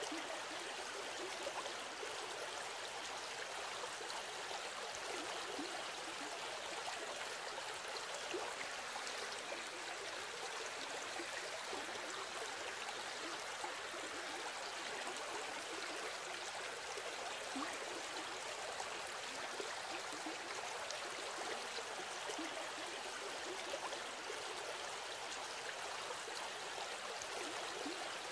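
Steady, even rushing noise with no breaks, of the kind running water or a stream makes.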